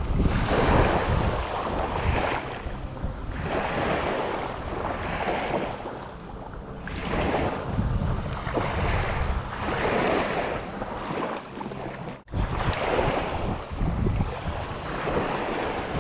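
Small waves breaking and washing on the shore in repeated surges, with wind rumbling on the microphone. The sound drops out for an instant about twelve seconds in.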